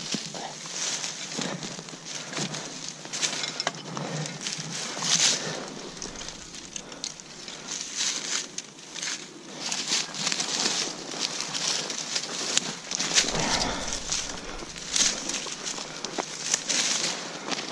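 Forest soil and leaf litter crunching and rustling in irregular bursts, as the ground is dug and worked while metal detecting.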